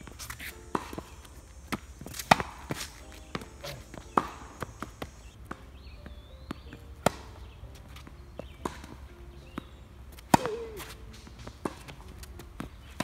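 Tennis rally on a hard court: racket strings popping against the ball and the ball bouncing on the court, a string of sharp knocks with the loudest hits every two to three seconds.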